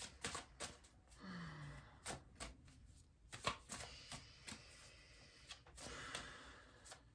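Deck of oracle cards being shuffled by hand: a string of soft clicks and slaps with papery brushing between them.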